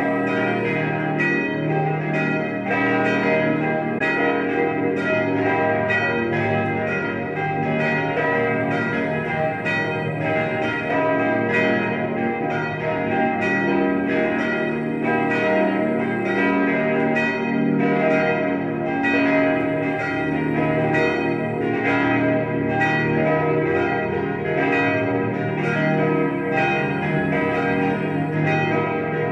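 The church bells of St. Laurentius, Tittmoning, a 1950s Czudnochowsky peal tuned b° es′ f′ g′ b′, swinging and ringing together in a full, continuous peal. Their strikes overlap steadily, several a second, each leaving a long hum.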